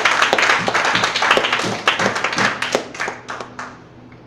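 Audience applauding, the clapping thinning out and dying away a little before the end.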